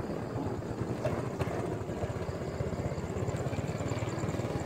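A small engine running steadily, with a rapid low pulsing.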